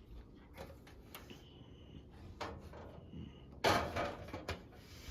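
Handling noise from a metal box fan being turned around by hand: scattered knocks and scrapes, with the loudest bump about three and a half seconds in.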